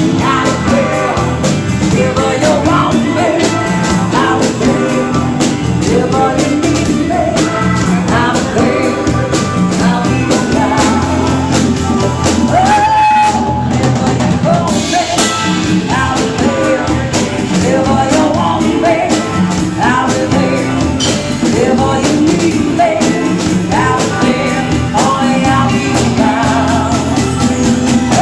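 Rock song: a singing voice carries the melody over drums and guitar at a steady beat.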